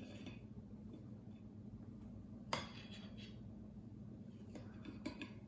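A knife cutting a slice from a frosted cake and clicking against the cake stand: one sharp click about two and a half seconds in, then a few fainter clicks near the end.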